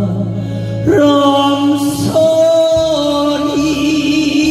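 A singer holding long, wavering notes over a band accompaniment, moving to a new pitch every second or so, in a slow Korean ballad.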